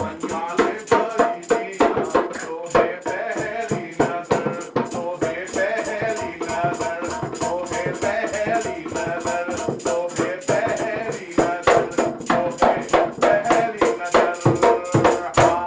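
Dholak barrel drum played by hand in a fast, steady rhythm, with a man singing along; the strokes grow louder about three quarters of the way through.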